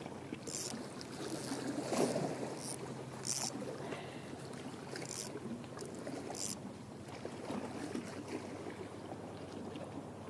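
Small waves lapping at the lake shore, with short hissing splashes every second or so that die away in the last few seconds.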